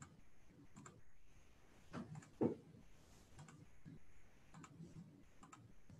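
Faint, scattered clicks from working a computer, with a louder knock about two and a half seconds in.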